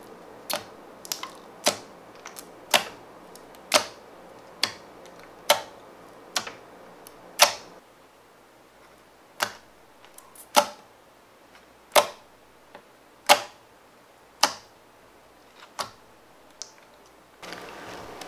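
Fingers poking clear slime packed with gold leaf flakes, each poke giving a sharp, wet popping click. The clicks come about once a second, with a short pause around the middle.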